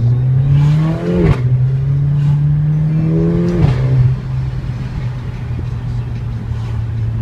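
Mercedes-AMG A45's turbocharged 2.0-litre four-cylinder accelerating through the gears, heard from inside the cabin. The engine note climbs and drops sharply at an upshift about a second in, climbs again and drops at a second upshift nearly four seconds in, then settles into a steady cruise.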